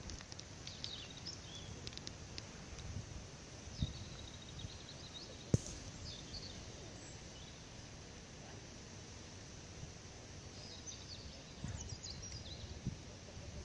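Quiet outdoor ambience with faint, short bird chirps coming and going over a low rumble, a few soft thumps, and one sharp click about five and a half seconds in.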